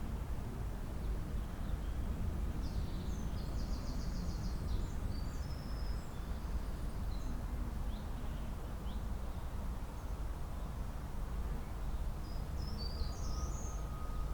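Wild songbirds calling and singing in spring, with scattered short high chirps, a quick trilled phrase a few seconds in and another brief phrase near the end. A steady low rumble runs underneath.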